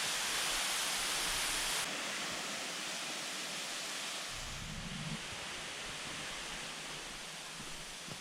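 Steady rushing of a waterfall, a dense hiss of falling water that drops a little in level about two seconds in, with a brief low bump near the middle.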